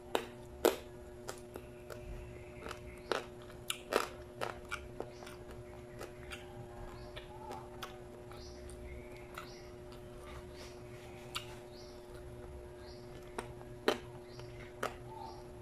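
A person chewing frog adobo and rice close to the microphone, with irregular sharp wet clicks and smacks of the mouth and crunching, most frequent in the first few seconds and again near the end.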